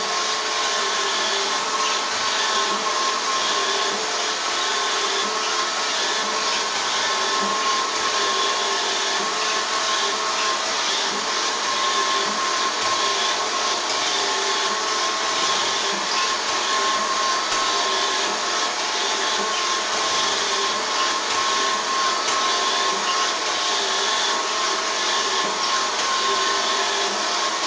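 Robot vacuum cleaner running continuously: a steady whir of its fan and brushes with a constant hum.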